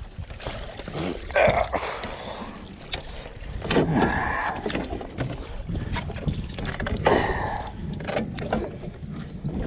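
Water splashing and sloshing in several bursts as a large catfish thrashes in a landing net at the side of a boat, over a low wind rumble on the microphone.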